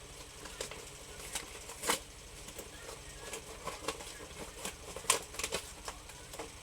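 Anime figure's cardboard-and-plastic packaging being opened and handled: irregular crackling and rustling, with two sharper snaps about two and five seconds in.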